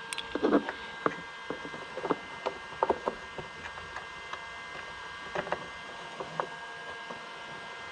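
Small scattered clicks, taps and scrapes of fingers hand-threading the mounting screws of a new blower motor resistor into the plastic blower housing, the busiest at about half a second in and again around three seconds. A faint steady hum runs underneath.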